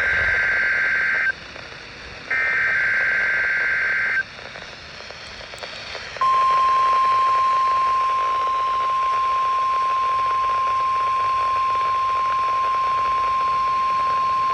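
NOAA Weather Radio Required Weekly Test alert signals. First come two bursts of the SAME digital header, a buzzy warbling data screech of about two seconds each, the first already under way. Then, about six seconds in, the steady single-pitch 1050 Hz warning alarm tone sounds without a break.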